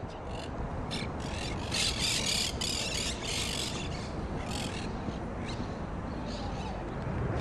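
Monk parakeets squawking: a run of harsh, screechy calls, bunched together about two to four seconds in, with a few scattered calls after, over a steady low rumble.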